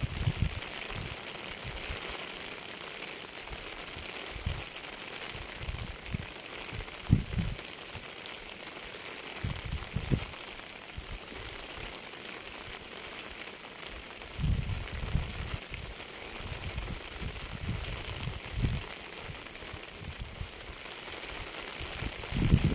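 Steady rain falling as an even hiss, with irregular low thumps scattered through it, clustered here and there.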